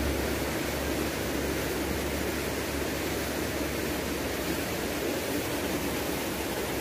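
Steady rush of shallow river water flowing over a concrete weir, with a low rumble underneath that drops away about half a second in.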